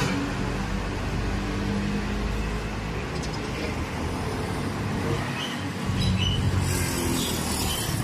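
Road traffic: a steady rumble of passing vehicle engines and tyres, swelling a little about six seconds in.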